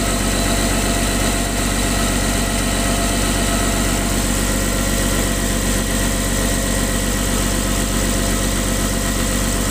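Caterpillar diesel engine idling steadily. The owner suspects bad injectors are behind its heavy exhaust smoke.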